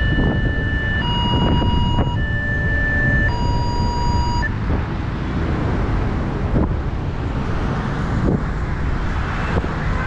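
Railway level-crossing warning alarm, an added recording: two tones, a higher and a lower one, alternating about a second each and stopping about four and a half seconds in. A steady low rumble runs underneath.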